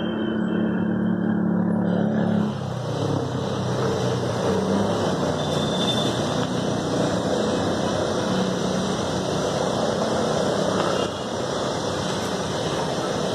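Skoda Superb's engine idling steadily while HHO gas is fed into its intake to burn off carbon deposits. The sound changes about two and a half seconds in, from a low hum heard inside the cabin to a fuller running noise heard outside at the open bonnet.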